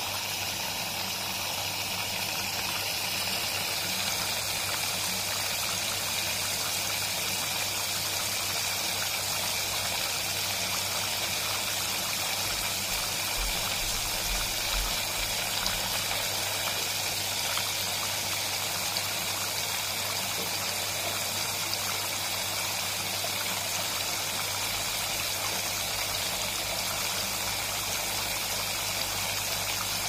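Wyss Mirella Universal 2000 washing machine filling: warm water rushing steadily through its detergent dispenser drawer, with a steady low hum underneath.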